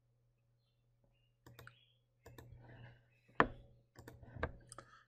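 Several sharp clicks of computer input while presentation slides are changed, the loudest about three and a half seconds in, with silence between them.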